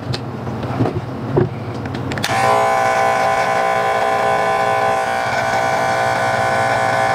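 Scarlett SC-167 corded electric hair clipper starting up about two seconds in after a couple of light knocks, then buzzing steadily as its blades trim moustache hair.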